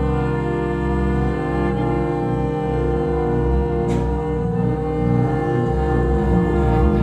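Experimental music of sustained, overlapping bowed-string tones over a low drone, with a short sharp click about four seconds in.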